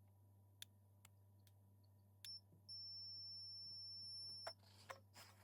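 A short high electronic beep about two seconds in, then a steady high beep held for nearly two seconds, over a low steady hum. A few faint clicks come before it, and some light handling noise near the end.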